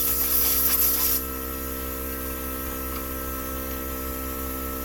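Air hissing loudly, cutting off suddenly about a second in, over a steady motor hum that runs on unchanged.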